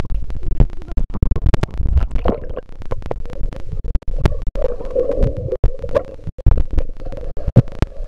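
Muffled underwater sound from a waterproof pocket camera submerged in a swimming pool: low rumbling with many sharp knocks and clicks as water moves and hands handle the camera. A muffled steady tone comes in from about four and a half to six seconds in.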